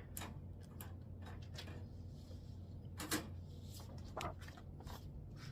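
Sheets of printer paper being handled for loading into a printer tray: faint rustling with a few light clicks and knocks, the most distinct about three seconds in, over a low steady hum.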